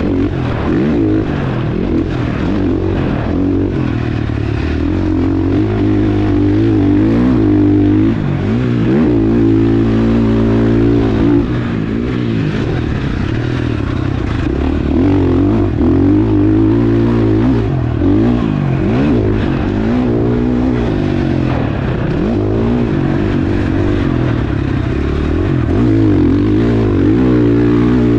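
KTM 450 SX-F motocross bike's single-cylinder four-stroke engine ridden hard, its pitch rising and falling again and again as the throttle is opened and shut.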